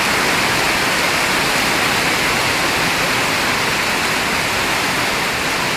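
Heavy hailstorm: hailstones and rain pelting hard ground, a steady dense hiss.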